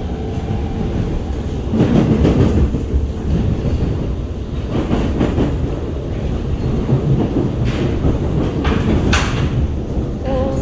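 Inside an SMRT R151 metro train's carriage while it runs along the track: a steady wheel-and-rail rumble with louder clattering rattles about 2, 5 and 9 seconds in.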